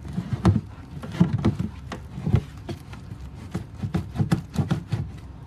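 Fluffy glue-and-borax slime being squished and kneaded by hand in a plastic tub: an irregular run of soft squishes, small clicks and low thuds.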